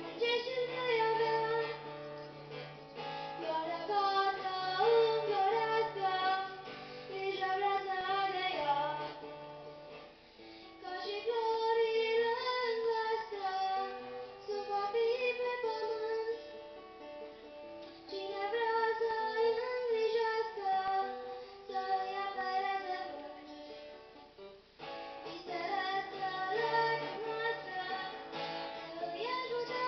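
A girl sings a folk song, accompanying herself by strumming an acoustic guitar. The melody comes in long sung phrases with short breaks between them.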